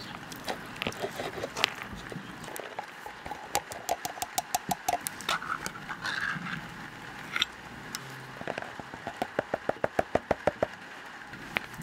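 Kitchen food-prep sounds: a ring-pull tin can being opened about five seconds in, then a run of quick, even knife strokes on a plastic cutting board near the end. An earlier run of quick clicks comes before the can.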